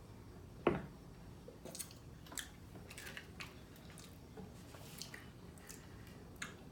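Close-up mouth sounds of a person eating a taco: chewing with small wet clicks and crackles, and one sharper, louder sound less than a second in.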